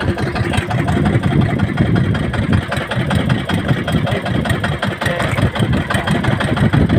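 Engine of a small outrigger fishing boat running steadily.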